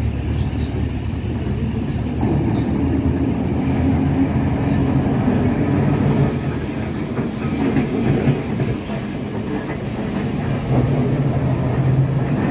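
Vintage electric trams passing close by one after another on street tracks: a steady motor hum with the noise of steel wheels on the rails, louder from about two seconds in as the nearest tram approaches.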